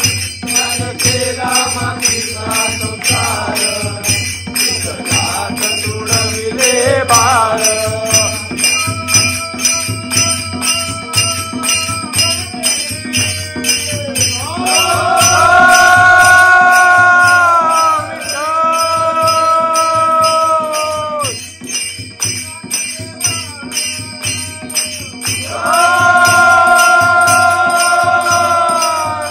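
Bhajan-style devotional music: a steady jingling beat, with long held notes that swell in twice, about halfway through and near the end.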